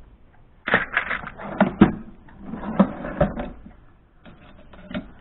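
Metal hand tools clattering and clinking as they are handled and shifted about in a toolbox. A dense run of knocks lasts a few seconds, and a few more clinks come near the end.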